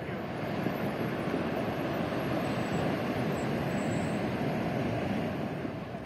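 Steady rushing noise of surf breaking on the shore, with wind on the microphone.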